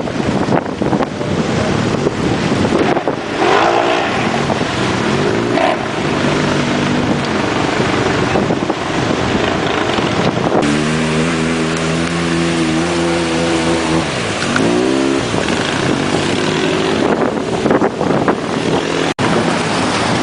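ATV engine revving up and down over and over, held high and steady for a few seconds around the middle, with a constant loud rushing noise.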